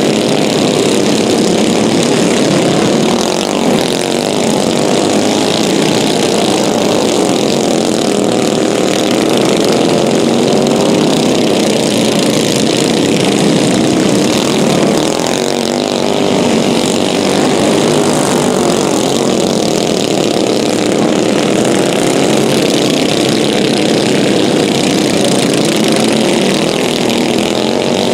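A pack of dirt-track racing karts with small single-cylinder Predator engines running hard, several engines overlapping. Their pitches rise and fall steadily as the karts accelerate, lift for the corners and pass by.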